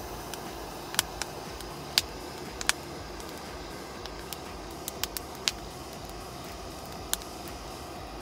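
Portable gas-canister stove burner hissing steadily after being lit, with a few sharp clicks and taps of the frying pan and utensils on it.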